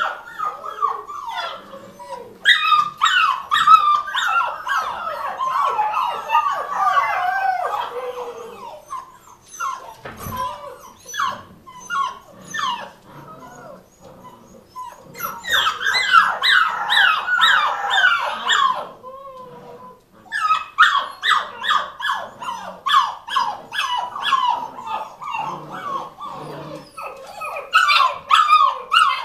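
A litter of collie puppies whimpering, squeaking and crying. Several voices overlap in long stretches, with quieter spells of single squeaks in between.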